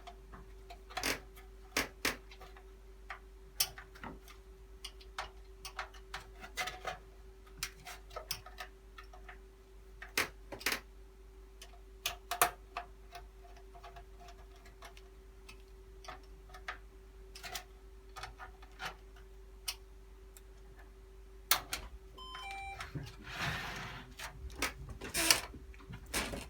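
Irregular sharp clicks and knocks of PC parts, cable plugs and plastic clips being handled and fitted inside a computer case, over a steady faint hum. Near the end a short run of stepped electronic tones is followed by a few seconds of rustling as cables are handled.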